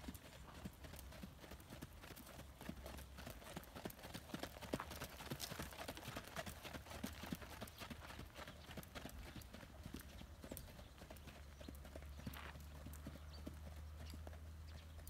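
Icelandic horse's hoofbeats on the sand arena footing, a running series of soft, quick strikes under a steady low hum.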